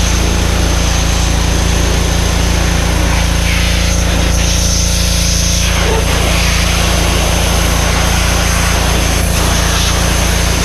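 Power Stroke 2200 PSI gas pressure washer running steadily under load, its small engine humming evenly, with the hiss of the high-pressure spray washing vinyl siding.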